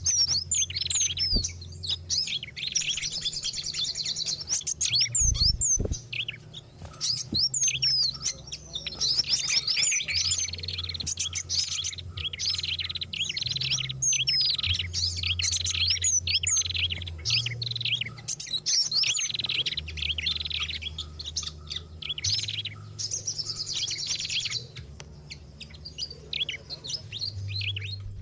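A bird-lure recording of several small songbirds calling at once: dense, overlapping high chirps and rapid trills with no pause, over a faint low hum.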